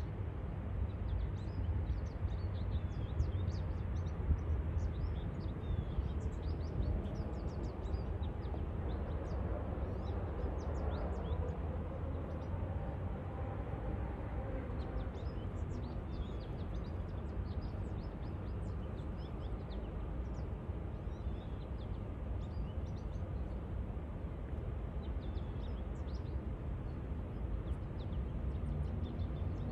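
Small birds chirping off and on over a steady low rumble, with a faint hum that swells and fades about ten to fifteen seconds in.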